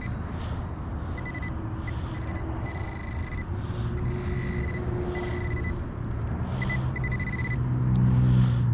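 Handheld metal-detector pinpointer sounding a high, steady electronic tone in on-off stretches as it is worked over a target, over the low rumble of a vehicle that grows louder near the end.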